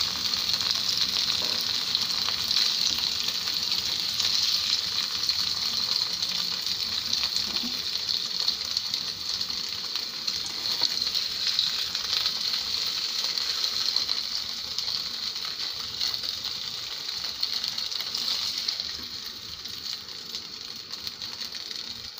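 Tofu frying in hot oil in a pan: a steady sizzling hiss, with light clicks and scrapes of a spatula as the pieces are lifted out. The sizzle grows a little quieter near the end.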